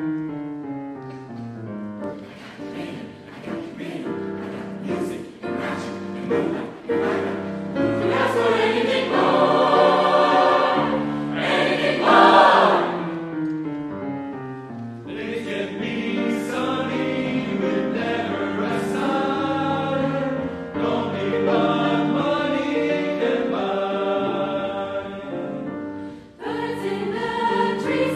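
Mixed choir singing with grand piano accompaniment, swelling to its loudest about twelve seconds in, with a brief drop shortly before the end.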